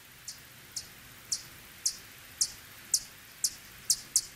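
Bat echolocation calls slowed down to audible pitch: short, high chirps repeating about twice a second, coming a little closer together near the end as the bat tracks a target in flight.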